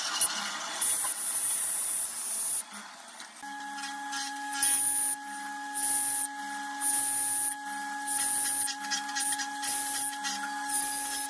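Mortising machine plunging its square chisel into hardwood: short bursts of cutting noise come about once a second. About a third of the way in, the machine's motor sets in with a steady whine.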